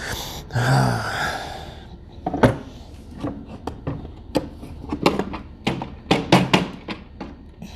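Hard plastic knocks and clicks from a Shark upright vacuum's dust canister being handled, as it is full and clogged with a stuck clump of dust. A short rushing noise comes first, and the loudest thunk lands about two and a half seconds in.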